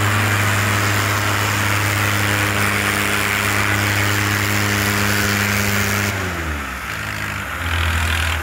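Tractor diesel engine held at steady high revs. About six seconds in, the revs fall away and the engine settles at a lower speed.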